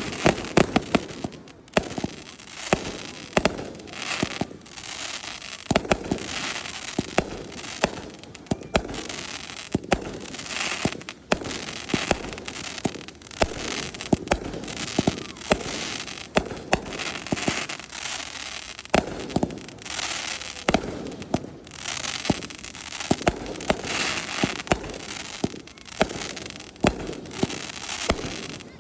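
Aerial fireworks display: a steady run of sharp booms from shells bursting, many a second at times, over a continuous crackling hiss.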